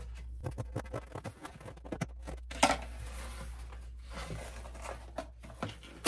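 Cardboard box being cut and pulled apart by hand: a string of short snips, scrapes and crackles, with one louder burst about two and a half seconds in.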